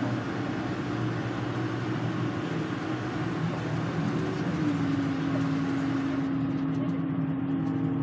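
Bus engine and tyre noise heard from inside the cabin at highway speed, a steady drone. About halfway through, a steady hum from the drivetrain comes in on top and holds.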